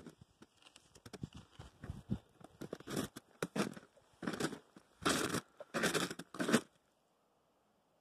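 Footsteps crunching in snow, a run of irregular crunches that grow louder, then cut off suddenly near the end.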